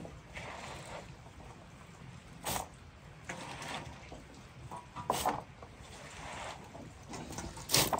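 Shredded cabbage, beet and carrot being tossed and squeezed by hand in a large metal tray: a low wet rustling, with three louder scrunches, the loudest near the end.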